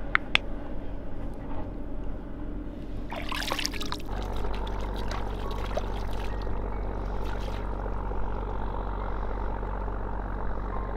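Shallow river water splashing and dripping as a caught fish is lifted out on a line, in several bursts. A steady low drone sets in about four seconds in.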